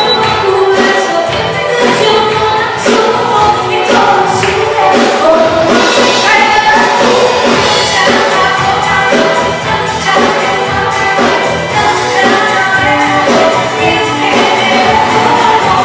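Live band music: women singing into microphones over electric bass, electric guitar, drums and keyboard.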